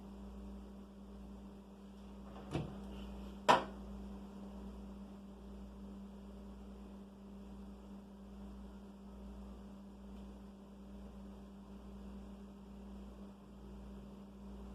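Steady electrical mains hum, with two sharp clicks about a second apart near the start, the second louder, from a small cable connector being handled and pushed onto a computer motherboard.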